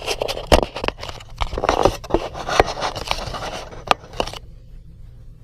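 Close-up plastic scraping and a run of sharp clicks from hands working a laptop LCD panel's video cable connector into place, stopping suddenly about four seconds in.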